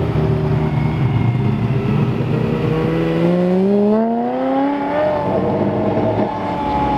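Ferrari F355 Spider's V8 engine pulling away up a hill. The note holds steady, then climbs in pitch through one long rev-up about halfway through, and levels off near the end.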